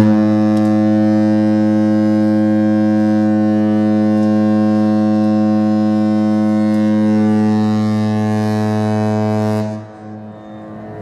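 Cruise ship Mein Schiff 3's horn sounding one long, deep, steady blast of nearly ten seconds, the signal for leaving harbour. It cuts off near the end.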